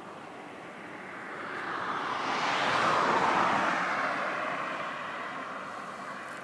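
A passing vehicle: a steady rushing noise that swells to a peak about three seconds in, with its pitch sliding down as it goes by, then fades.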